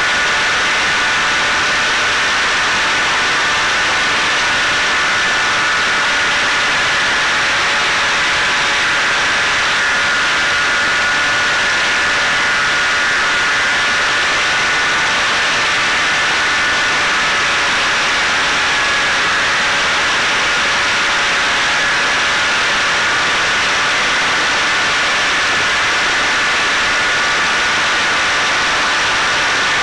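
Electric motor and propeller of a Caipirinha 2 flying-wing drone heard from its onboard camera in cruise: a steady whine over a loud rush of wind and hiss, the throttle held nearly constant.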